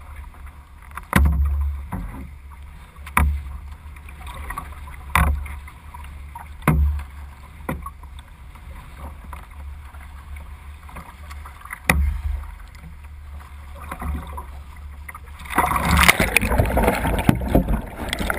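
Water slapping against a sea kayak's hull close to a bow-mounted camera, sharp knocks with a low thud every second or two. About fifteen seconds in the kayak capsizes for a roll, and a dense rush and bubbling of water takes over as the camera goes under.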